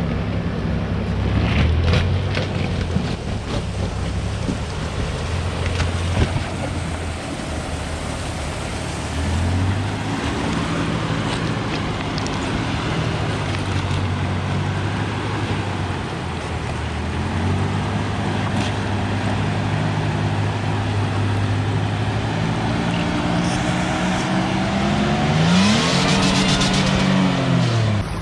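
Supercharged Toyota Tacoma engine working off-road in low gear, revving up and settling back several times. A few sharp knocks come early on. Near the end a whine climbs steeply with the revs before the sound cuts off.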